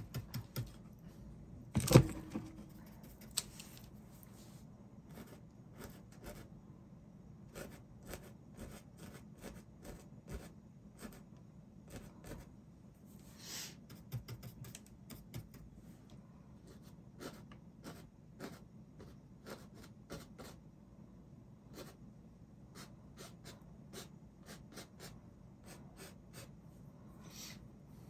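Paintbrush working on a canvas: a long run of soft taps and scratchy strokes, with one louder knock about two seconds in.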